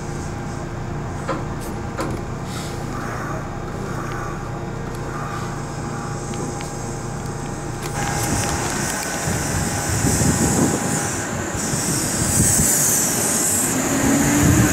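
Kintetsu electric train running: a steady hum with a few clicks over the rails, heard from inside. About eight seconds in the sound changes to a train heard beside it at the platform, louder and hissier, with the motors' whine rising near the end as it pulls away.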